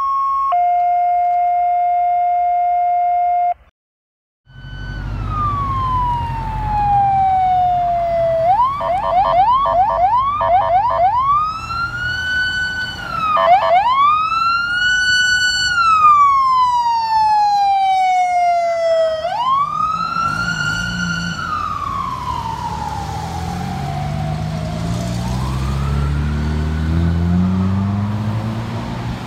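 Fire department command SUV's electronic siren, switching between slow falling-and-rising wail sweeps and short stretches of rapid yelp, over traffic engine rumble. The siren grows fainter near the end as the engine rumble swells. It is preceded by a few seconds of a steady two-note synthetic tone.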